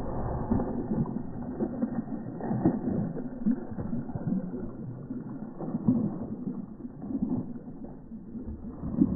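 A Doberman pinscher's paws splashing irregularly through shallow water at a run.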